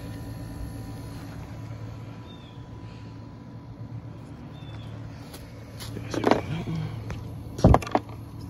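Daikin mini-split outdoor unit running with a steady low hum, freshly started in heating mode with its pressures still rising. About six seconds in and again near the end, tools clatter and knock sharply as they are handled.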